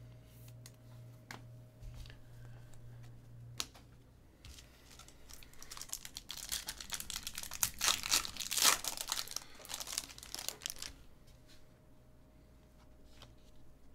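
Foil wrapper of a Bowman Sterling baseball card pack being torn open and crinkled by hand. The crinkling starts about four seconds in, is loudest past the middle, and stops a few seconds before the end, followed by a few faint clicks as the cards are handled.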